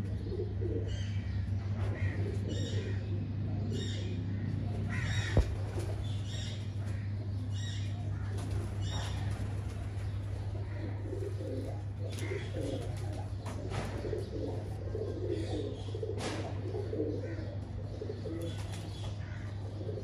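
Teddy pigeons cooing in a loft, with short high chirps scattered through and a steady low hum underneath. A single sharp click about five seconds in.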